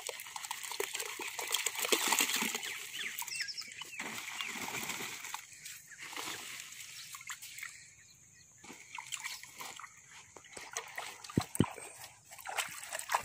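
Powdered and lumpy jaggery shaken from a woven plastic sack, dropping and splashing into a drum of water, with the sack rustling. The busiest pouring comes in the first few seconds, then thins to scattered small splashes and clicks.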